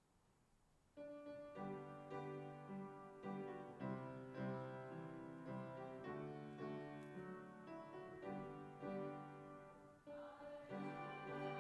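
Instrumental prelude music starts about a second in, after a near-silent pause. Sustained pitched notes and chords move in a slow, even pace.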